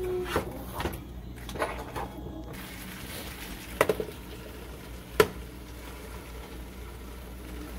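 A spoon scraping and knocking against a frying pan as chicken is stirred, then a glass lid set down on the pan with a few clinks, a sharp one about five seconds in. A low steady sizzle of the chicken cooking runs underneath.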